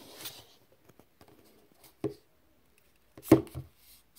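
Handling knocks of hard objects against a tabletop: a single knock about two seconds in, then a quick cluster of two or three knocks near the end.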